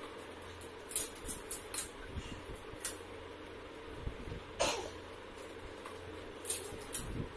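Crisp pani puri shells being cracked open with the thumb: a series of about eight short, sharp cracks, the loudest a little after halfway, over a low steady hum.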